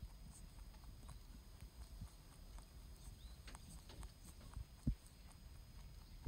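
Angora rabbit chewing a compressed alfalfa cube: faint, irregular crunching clicks, with one louder low thud about five seconds in.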